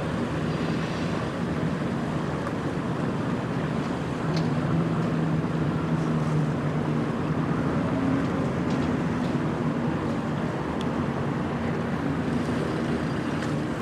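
An engine running steadily, a low even hum over a rushing noise.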